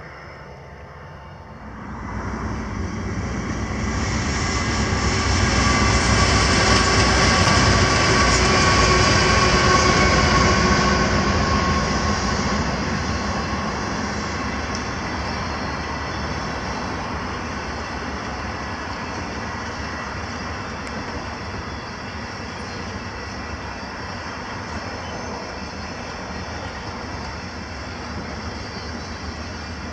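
A long passenger train of stainless-steel carriages (The Ghan) passing close by, its wheels rolling steadily over the rails. After a brief quieter moment at the start, the sound builds over a few seconds, is loudest about a third of the way in, then settles to an even, slightly softer rolling as the carriages go by.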